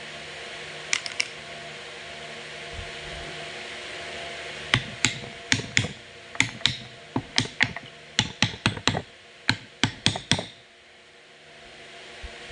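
Sharp metallic clicks and taps from the parts of a forklift transmission's clutch drum stack being handled and fitted: a few about a second in, then about twenty in quick irregular succession from about five to ten seconds in, over a steady background hum.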